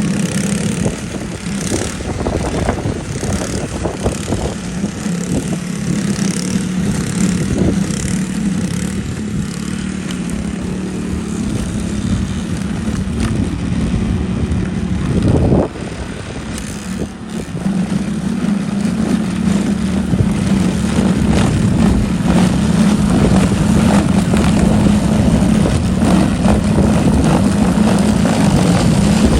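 Yardmax YB4628 single-stage snow thrower's engine running at a steady speed. Its sound drops briefly just past halfway, then comes back up.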